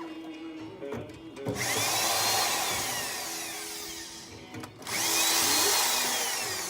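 Power drill/driver running in two spells of a few seconds each, its pitch swinging up and down, the second starting about five seconds in, while driving screws out of a microwave's casing.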